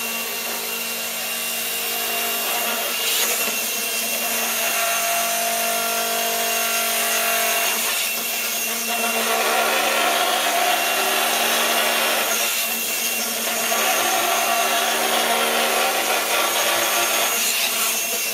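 Electric motors of a home-built gyroscopic inertial thruster running, a steady mechanical whir with several hums and whines. The sound swells and shifts every four to five seconds as the machine runs its gyro cycles to brake its pendulum swing.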